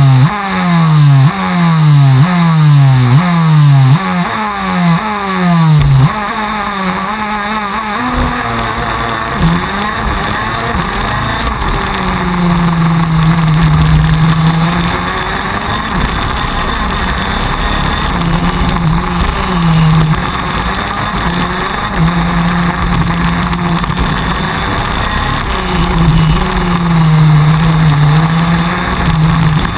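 Onboard sound of a TM 125 cc two-stroke KZ2 shifter kart engine at racing speed. For the first six seconds the revs climb and snap back over and over, about every three-quarters of a second. After that they rise and fall more slowly through the corners.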